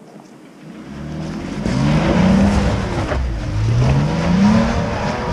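Jeep Cherokee's engine revving as it climbs a rocky ledge in four-wheel drive, the pitch rising twice as the throttle is pushed, with a single knock about three seconds in.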